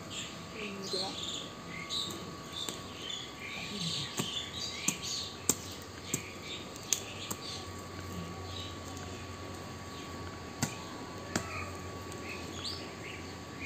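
Small birds chirping and twittering in quick, irregular calls, busiest in the first few seconds and again near the end, with several sharp knocks in the middle.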